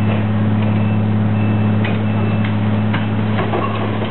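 Heavy truck engine running at a steady idle, a loud low drone, with a few sharp clanks in the second half.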